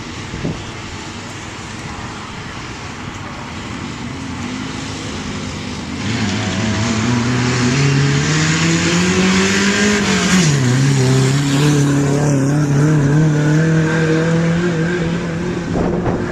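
Vehicle engine pulling away under power: its pitch climbs for about four seconds, drops sharply at a gear change, then holds steady. A rush of noise comes with the climb.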